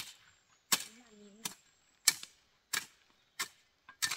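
A hoe chopping into dry, stony soil in a steady rhythm, about six sharp strikes at a little over one a second.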